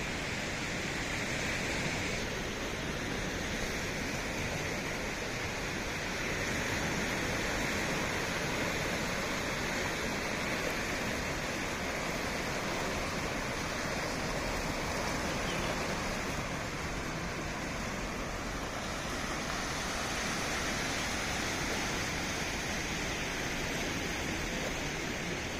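Small waves breaking and washing over a sandy, rocky shore: a steady rush of surf that swells a little now and then.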